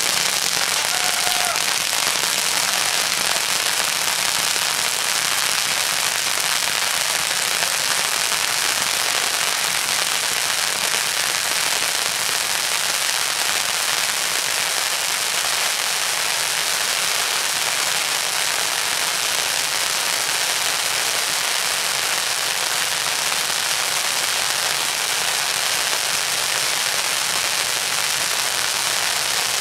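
A row of ground fireworks going off at once, a dense unbroken crackle that holds steady and loud throughout.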